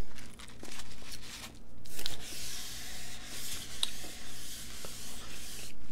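Paper sandwich wrapper rustling as it is rubbed and handled on the table, with a short lull about one and a half seconds in.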